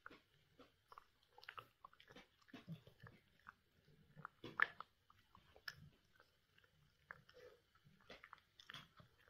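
A small dog chewing and gnawing on something held between its paws: a run of small, irregular crunches and clicks, the loudest about four and a half seconds in.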